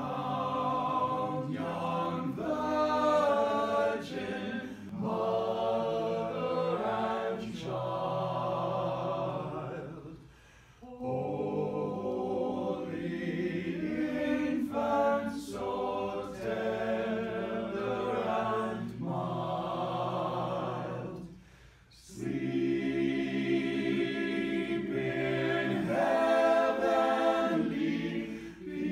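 A small men's a cappella ensemble singing in close harmony, unaccompanied. It sings in long phrases with two short breaks, about a third and about two-thirds of the way through.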